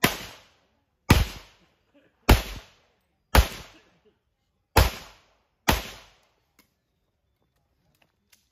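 Six pistol shots, about one a second, each trailing off briefly, fired by a competitor shooting through a port in a stage wall. A few faint clicks follow near the end.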